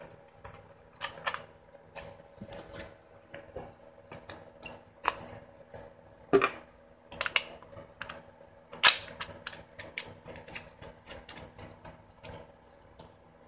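Plastic clicks, taps and rattles of an action camera being handled and fitted into its clear plastic housing and mount, in irregular bursts with a sharp snap about nine seconds in.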